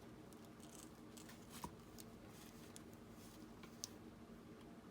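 Near silence: faint room hum with small handling clicks as a Crop-A-Dile hole punch is fitted onto the journal cover, two clicks a little sharper, one about one and a half seconds in and one near the end.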